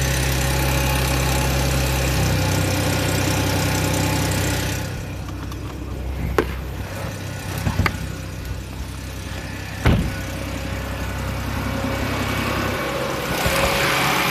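Audi A6 3.0 TFSI supercharged V6 idling steadily, with a rattle that the owner suspects may be the timing chain. A few sharp knocks break in over the middle of the clip, the loudest about ten seconds in.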